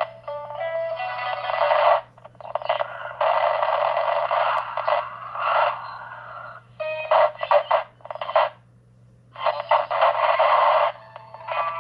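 Shortwave receiver audio from a Xiegu G90 transceiver as its dial is swept through the 7 MHz band on an active loop antenna. Bursts of static and snatches of stations with whistling tones cut in and out as signals pass, going briefly almost silent near the middle. A faint steady low hum runs underneath.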